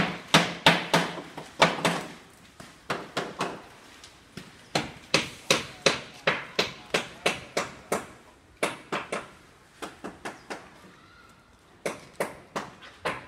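Footsteps on a hard, debris-covered construction-site floor: a steady run of sharp steps, about two to three a second, growing fainter and sparser in the second half.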